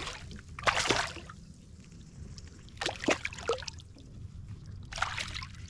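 Water splashing and trickling beside a kayak in three short bursts: about a second in, about three seconds in, and near the end.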